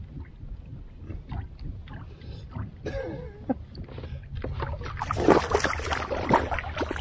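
Hooked kokanee salmon splashing at the surface beside the kayak as it is brought in to the landing net. The splashing is loud from about five seconds in, over a low wind rumble and small handling clicks.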